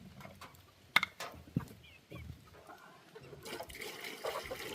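Water poured from a jug into a chickens' water bowl, a steady pour starting about three and a half seconds in, after a few sharp knocks, the loudest about a second in.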